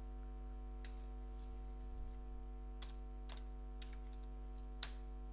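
Computer keyboard keys and mouse clicks, about half a dozen scattered clicks with the sharpest one near the end, over a steady electrical hum.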